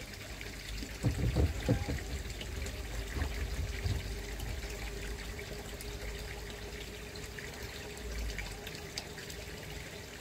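Water trickling and pouring steadily into a koi pond, with a faint steady hum under it and a few low thumps about a second in.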